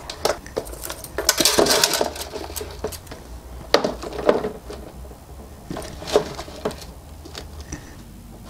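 Handbags being handled and set on a shelf: rustling with soft knocks and small clinks of their metal clasps and buckles, in a few short bursts.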